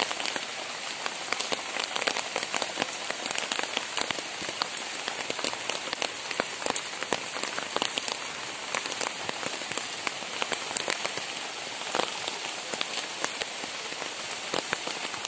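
Steady heavy rain, with many sharp drop hits standing out from the even hiss.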